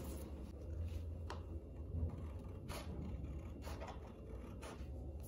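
Scissors cutting paper, a series of separate snips a second or so apart.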